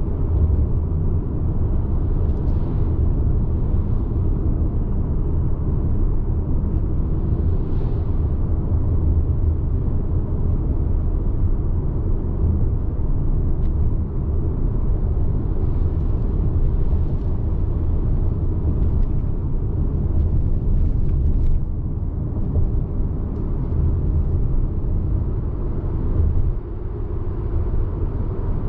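Steady low rumble of a Subaru Forester on the move, heard from inside the cabin, with a few faint brief high-pitched sounds now and then over it.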